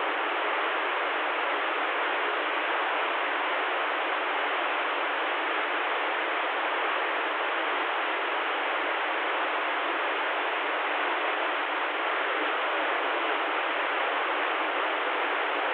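CB radio receiver hissing with open squelch between transmissions: steady band static with no station coming through, cut narrow like a radio speaker's audio.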